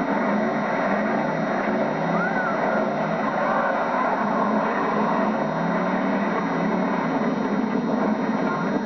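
Demolition derby car engines running and revving together in a steady din, their pitch rising and falling again and again. Dulled by an old VHS recording.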